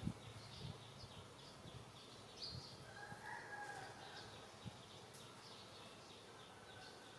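Faint background ambience of quiet, high, short chirps repeating about twice a second, with a brief low thump at the very start.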